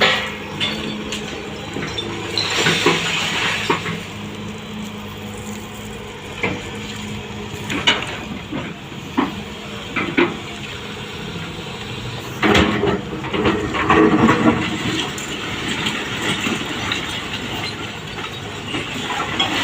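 Sany excavator working with its engine running steadily. Bursts of clattering and scraping debris come about 3 seconds in, again at about 8 seconds, and longest about 12 to 14 seconds in.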